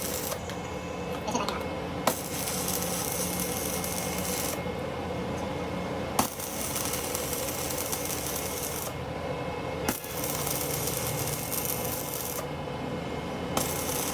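Metal parts and hand tools clinking during workshop repair work, with a sharp click about every four seconds over a steady background hum and hiss; the hiss cuts in and out every couple of seconds.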